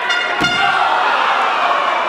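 A wrestler slammed down onto the wrestling ring mat: one heavy thud about half a second in, over steady crowd noise and shouting.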